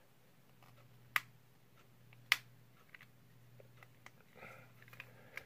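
Plastic child-resistant press-and-turn cap on a small tincture bottle clicking as it is pressed and twisted without coming open: two sharp clicks about a second apart, then a few faint ticks.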